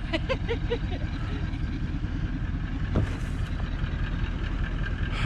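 A four-wheel-drive's engine idling steadily, with a single short knock about three seconds in.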